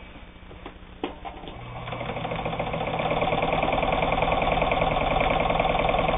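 Necchi Supernova Ultra sewing machine starting up and sewing a straight stitch through shirting fabric. After a click about a second in, it speeds up over a couple of seconds and then runs steady with a fast, even needle clatter.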